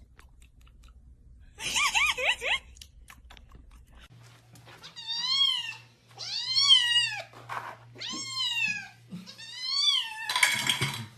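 A cat meowing four times, about a second and a half apart, each meow rising and then falling in pitch. A short burst of quick, wavering high squeaky calls comes about two seconds in, before the meows.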